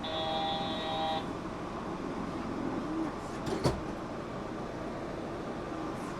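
Steady rumble inside a Yurikamome train car, with a steady electronic tone of several pitches for about the first second. A single sharp knock comes a little past the middle.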